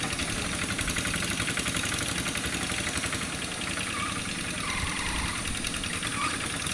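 Quick G1000 two-wheel hand tractor's diesel engine running steadily under load with an even, rapid beat as its cage wheels work through a flooded rice paddy.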